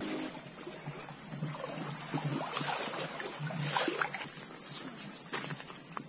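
A steady, high-pitched insect drone, with soft splashes and steps of someone wading through shallow water beneath it.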